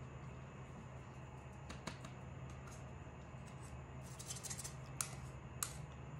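A few light clicks and taps from painting materials being handled, over a steady low hum: a cluster of quick ticks about four seconds in, then two sharper clicks close together near the end.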